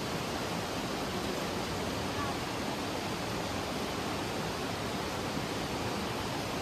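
Steady rush of water over the rocks of a mountain stream.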